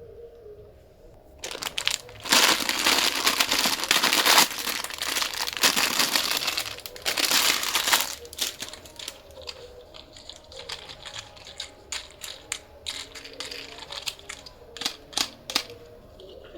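Crinkling, rustling noise for about six seconds, then a run of scattered light clicks and taps.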